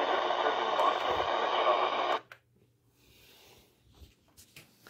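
Radio receiver static, a steady hiss, that cuts off abruptly about two seconds in, leaving only a faint hum and a few small ticks.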